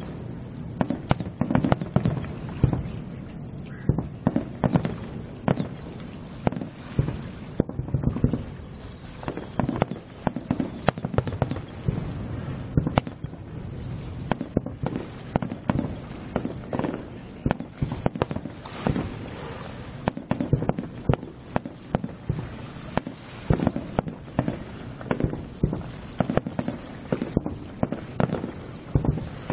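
Aerial firework shells bursting in quick succession, a continuous irregular run of booms and cracks, often several a second.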